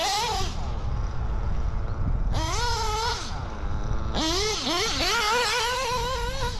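Modded Novarossi P5-based .21 nitro two-stroke engine on a tuned pipe in an RC car, revving hard on the track. It makes several high-pitched full-throttle pulls with wavering pitch, and the pitch drops between them as the throttle lifts, about a second in and again around three and a half seconds in. It holds high RPM without dying, a sign that the tune is now right.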